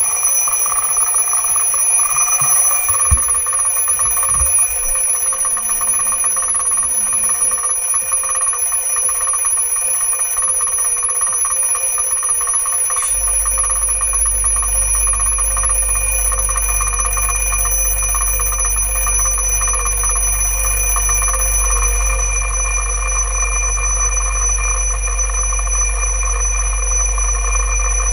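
Twin-bell mechanical alarm clock ringing continuously inside a sealed acrylic vacuum chamber. About 13 seconds in, a low steady hum starts as the vacuum pump begins drawing the air out of the chamber.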